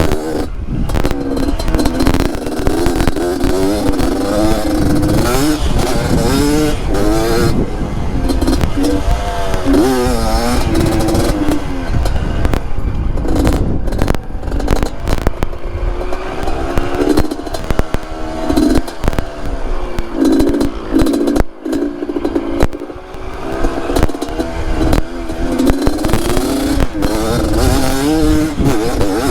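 Yamaha DT trail bike with a Yamaha RX-King two-stroke engine, its revs rising and falling constantly while riding over rocks, with frequent knocks and clatter.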